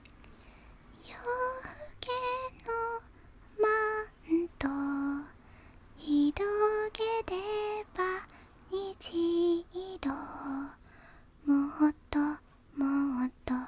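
A woman singing softly and unaccompanied in a small, near-whispered voice. Short sung phrases hold and step between notes, with brief pauses between them.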